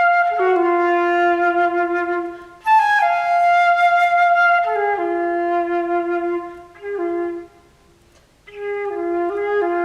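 Solo flute playing slow held notes in phrases, with a second, lower note sounding beneath the flute tone. A brief break comes about two and a half seconds in. The phrase fades out after about seven seconds, there is a short pause, and a new phrase begins near the end.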